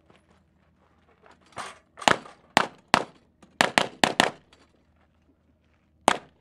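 A 9mm Dan Wesson 1911 pistol firing a string of shots, about eight in all, several in quick pairs, then one more after a pause of nearly two seconds.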